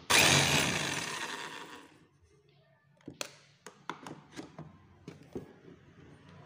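JLD JX35 demolition hammer's motor kicking into action with a sudden loud burst as the plug goes in, then dying away over about two seconds because the household supply is too weak to keep it running. A few seconds later, scattered clicks and knocks as the plug and tool are handled.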